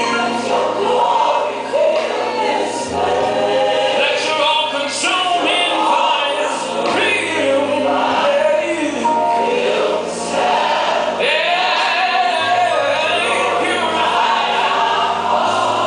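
Gospel worship music: a choir singing over sustained bass chords.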